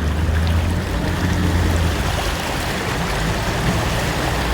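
Heavy rain and running floodwater as a steady rushing hiss, with a low rumble underneath that eases about two seconds in and comes back near the end.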